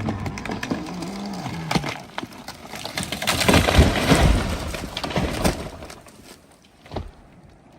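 Wood cracking and splintering in a long run of sharp snaps and crunches, loudest midway, then dying away with one last knock near the end.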